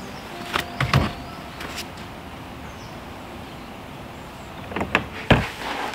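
Hut door being opened and shut: a short creak with a few sharp knocks about a second in, then more knocks and a bang near the end.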